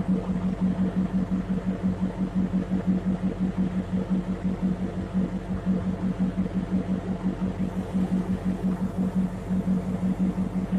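An engine idling steadily with a low hum that throbs in a fast, even pulse.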